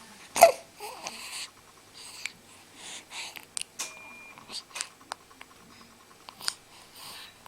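A baby sneezing once, short and sharp, about half a second in, then soft snuffling breaths through the nose.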